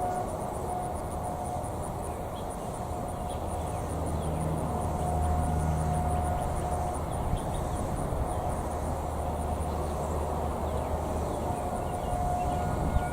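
Distant tornado siren holding one steady tone that swells and fades every few seconds as it rotates, with insects chirping in a fast, even rhythm. A low rumble swells up in the middle.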